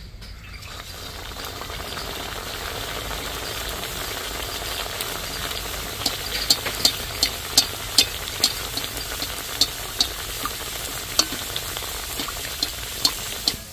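Stuffed pastry frying in hot vegetable oil in a kadai: a steady sizzle that builds up after it goes in, with sharp pops of spitting oil from about six seconds in.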